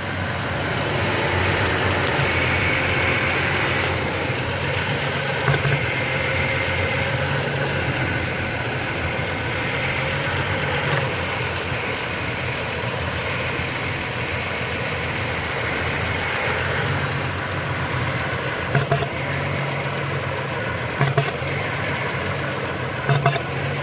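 2016 Toyota Tacoma idling steadily while the steering wheel is turned, with a handful of short, sharp pops standing out from the engine sound. The pops are the noise the owner is reporting as a fault when steering.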